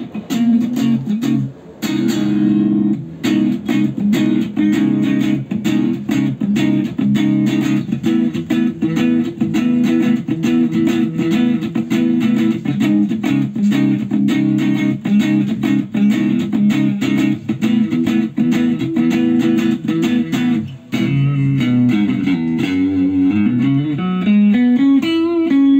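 Ibanez RG1550 electric guitar played through a Boss GT-1000 multi-effects processor: a fast, evenly picked riff, then about 21 seconds in sliding, bending notes that settle onto one held note near the end.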